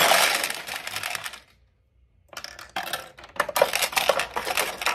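Steel pachinko balls clattering and rattling inside a vintage Nishijin pachinko machine, a dense metallic rattle that stops for under a second about a second and a half in, then starts again.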